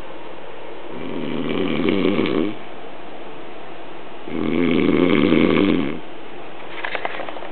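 A sleeping person snoring: two long snores about three seconds apart, each lasting about a second and a half, with a few faint clicks near the end.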